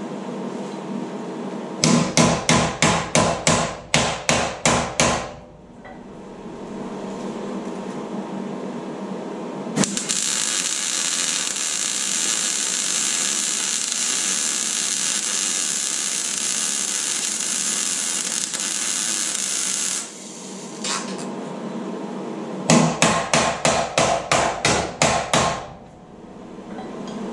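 MIG welder laying a continuous bead on the steel of a Land Rover Defender's rear crossmember: a steady hiss for about ten seconds in the middle. Before and after it come two runs of about a dozen sharp, rapid knocks, roughly three a second, each run lasting about three seconds.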